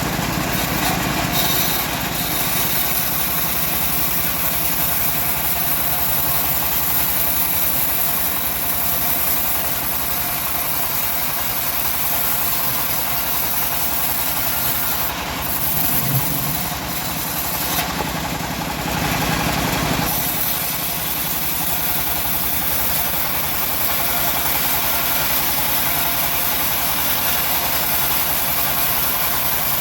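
Engine of a homemade bandsaw mill running steadily, with a slight change in its sound between about 16 and 20 seconds in.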